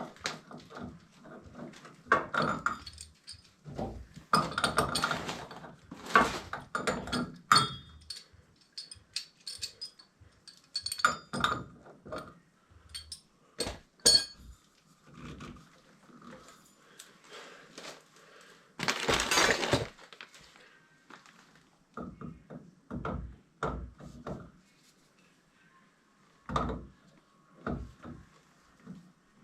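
Tools and copper plumbing parts being handled: irregular clinks, knocks and clatter, with a longer scraping rush of over a second about two-thirds of the way through.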